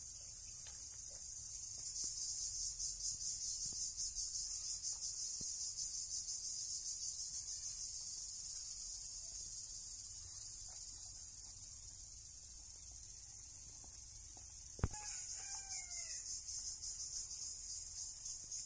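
Insects trilling high-pitched in a fast pulsing rhythm that fades for a few seconds and then starts up again. A sharp click comes about fifteen seconds in, followed by a short bird call.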